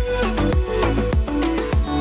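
Background music with a steady beat: drum hits about three or four a second over bass and melodic notes, in an Afrobeat-like groove.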